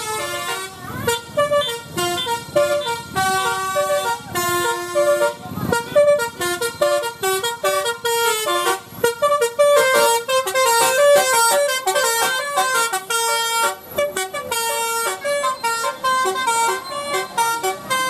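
Telolet musical air horn on a DAMRI coach playing a quick tune, its bright horn notes stepping up and down several times a second with short breaks between phrases.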